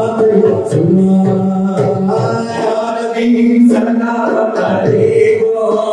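A group of men chanting an Islamic devotional song in Arabic in praise of the Prophet, singing together into microphones through a loudspeaker system, with long held notes.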